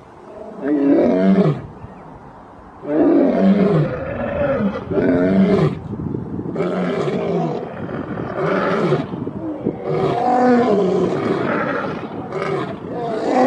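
Two male lions roaring together: one roar about half a second in, then from about three seconds a long run of overlapping roars, each falling in pitch.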